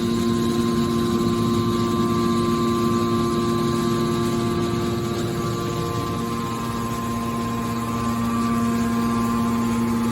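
Hydraulic scrap-metal baler running: the electric motor and hydraulic pump give a steady hum with several held tones, easing slightly about halfway through.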